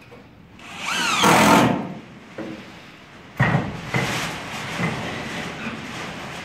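Cordless impact driver running in two bursts, driving screws through R1 resilient metal channel into wooden ceiling joists. A short loud burst with a rising whine about a second in, then a longer run from about three and a half seconds in.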